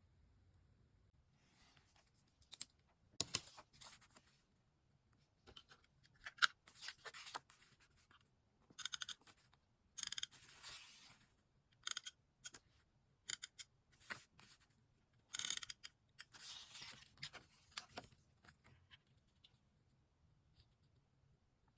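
Scissors cutting paper in a series of short, crisp snips, with paper rustling between cuts.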